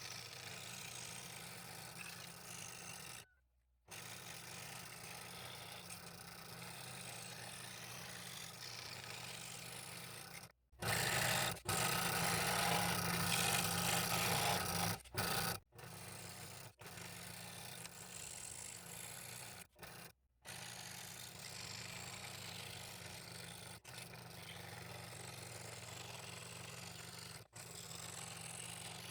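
Scroll saw running, its fine blade stroking up and down through a thin piece of ash, in several short stretches broken by abrupt edits; for a few seconds near the middle it is much louder.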